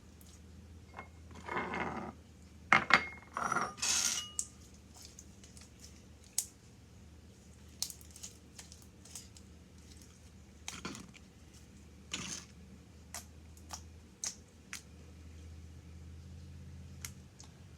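A fork and bowl clinking and scraping while slime is worked, as scattered sharp clicks with a few louder noisy scrapes, the loudest cluster in the first four seconds and two more a little past the middle.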